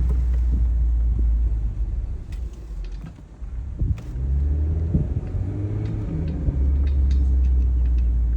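Low rumble of a car on the move, easing off about three seconds in and coming back a second later, with scattered light ticks and clicks.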